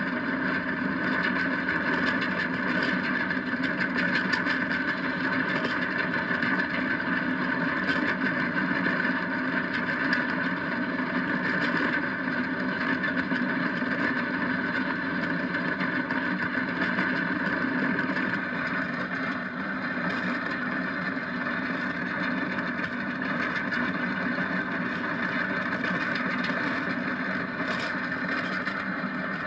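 Steady rushing noise of a downhill go kart at speed, wheels rolling on asphalt with wind, heard from on board. It eases slightly about two-thirds of the way through.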